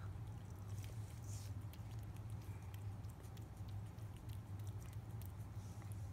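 A cat licking liquid Churu paste from the end of a squeeze tube: a string of small, irregular wet tongue clicks and smacks. A steady low hum runs underneath.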